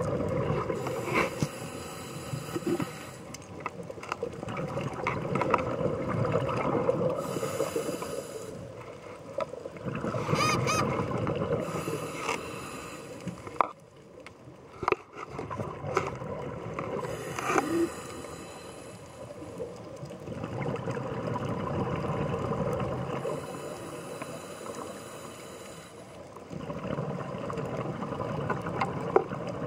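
Scuba diver's regulator breathing recorded underwater: hissing breaths and gurgling exhaled bubbles that swell and fade every few seconds, with a few sharp clicks.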